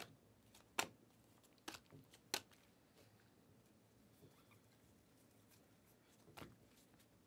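Sharp clicks and snaps of stiff Panini Prizm trading cards being slid one by one off a stack in the hands. There are four in the first two and a half seconds and another about six and a half seconds in, with near silence between.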